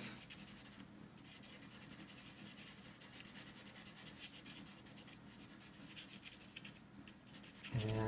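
Black pastel pencil scratching over sanded pastel paper in many short, quick back-and-forth strokes as it builds a rough texture. It is faint, with a brief pause about a second in.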